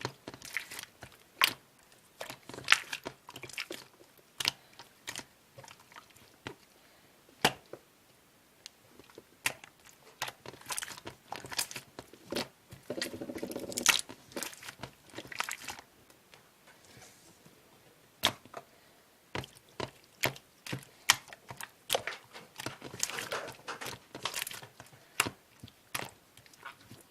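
Slime being squished and poked by hand, making irregular sharp wet pops and clicks with stretches of crackling, some pops much louder than the rest.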